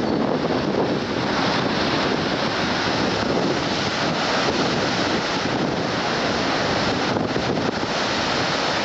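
Rough sea with high waves breaking, a steady heavy rush of surf with wind buffeting the microphone.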